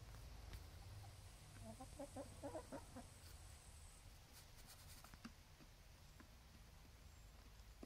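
Hen clucking softly: a quick run of short clucks about two seconds in, lasting just over a second, followed by a few faint clicks.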